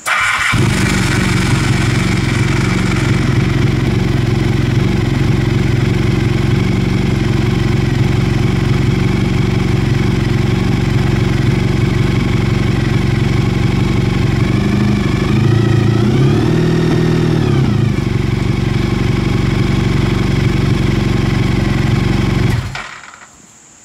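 Honda VF1000 V4 motorcycle engine starting and idling steadily, with one brief rev up and back down about two-thirds of the way through, then shut off suddenly near the end.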